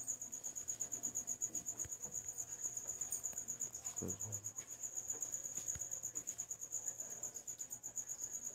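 A cricket chirping: a continuous high-pitched trill, pulsing rapidly, about ten pulses a second.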